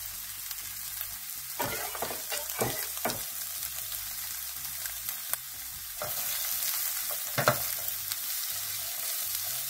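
Diced onions and garlic sizzling in hot olive oil in a Ninja Foodi NeverStick nonstick skillet, a steady hiss. Several short scrapes and knocks of a knife and then a wooden spoon against the pan as the garlic is scraped in and the mix is stirred, the sharpest about seven and a half seconds in.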